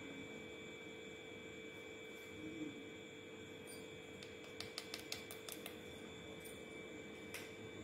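Faint steady electrical hum with a few thin high tones over it. About halfway through comes a quick run of small light clicks, with one more near the end, as a plastic measuring spoon tips salt onto a plastic plate.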